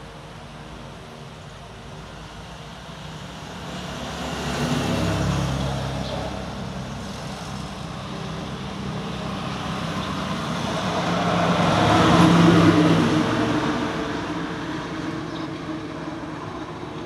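Road traffic passing: a motor vehicle swells up and fades away about five seconds in, then a second, louder one passes a little past the middle.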